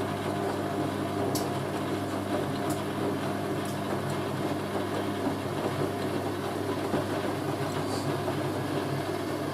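Hoover A3060 Electronic 1100 washing machine in its distribution drain: the drain pump hums steadily while the drum turns slowly, with a few light ticks.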